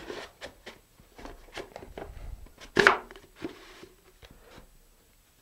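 Handling noise from a fiberglass model rocket being turned over on a table: scattered light taps and knocks, with one louder knock about three seconds in.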